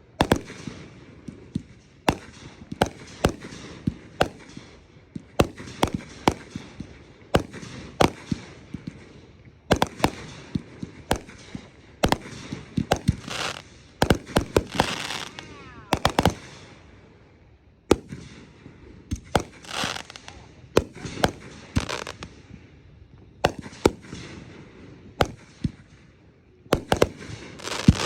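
Fireworks going off in a rapid, irregular string of sharp bangs, with hissing and crackling between the reports. The hissing grows louder about halfway through.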